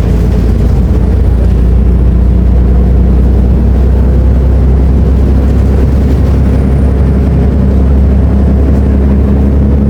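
Volvo B340M bus's six-cylinder diesel engine running with a steady, deep hum that does not change in pitch.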